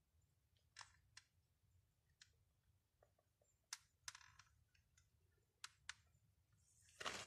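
Cats chewing dry food: faint, irregular crunching clicks, a few at a time, with a brief louder scuff near the end.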